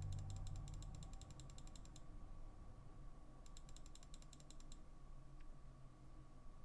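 Computer mouse scroll wheel ratcheting in two quick runs of evenly spaced clicks, about ten a second. The first run lasts about two seconds and the second starts a little past three seconds in.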